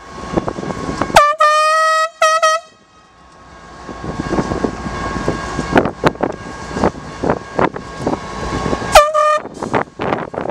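A handheld air horn gives a long single-tone blast about a second in, then a short one. Diesel locomotives rumble past over the crossing with sharp clicks, and the air horn gives another short blast near the end.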